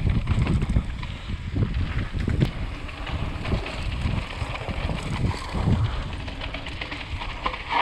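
Wind rushing over an action camera's microphone while a Canyon Torque full-suspension mountain bike descends a dirt trail, knobby tyres rolling and crunching over the ground. Short clicks and clacks from the bike rattling over bumps sound throughout; the wind and rumble are loudest early and ease off after a few seconds.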